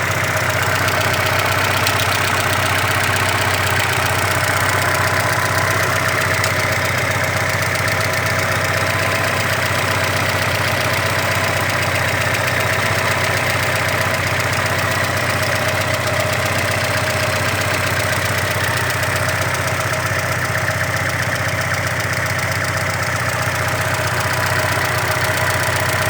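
Audi 80's 1.8-litre four-cylinder petrol engine idling steadily with a knock running through it, a fault the owner of this newly bought engine cannot place.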